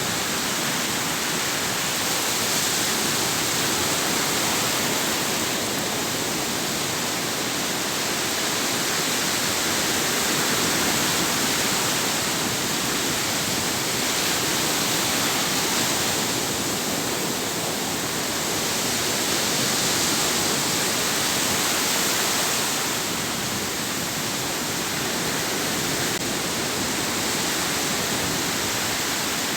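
Sea waves breaking and washing ashore: a continuous rush of surf that swells and eases slowly every several seconds.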